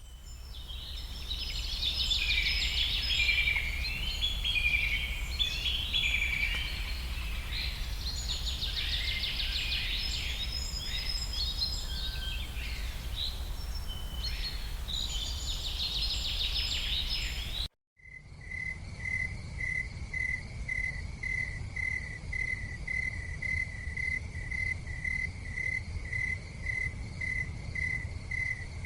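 Birds singing, a mix of chirps and trills, over a low steady rumble. After a brief drop-out about 18 s in, a cricket chirps steadily, about two pulsed chirps a second.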